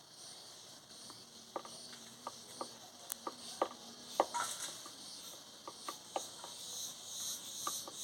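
Woodpecker pecking at wood: about a dozen sharp, irregularly spaced taps, with insects chirring high and steady behind.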